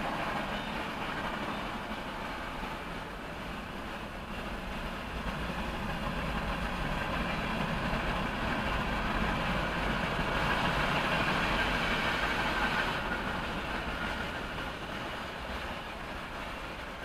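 Freight train of tank cars and covered hoppers rolling past, a steady noise of steel wheels on the rails that grows louder a little past halfway and eases off near the end, heard from inside a parked car.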